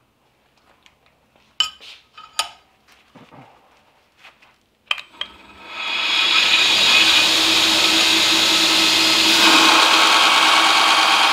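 A few sharp knocks, then a belt grinder spins up about halfway through and runs steadily as the steel knife blade is pressed to the belt, grinding in the tang shoulders.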